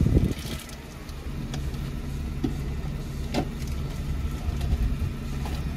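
Car engine idling, heard from inside the cabin as a steady low hum, with a low thump right at the start and a few faint clicks.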